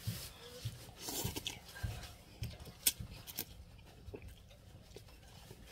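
A person chewing and eating instant noodles with a plastic fork: wet mouth sounds with irregular short clicks and smacks, the sharpest about three seconds in.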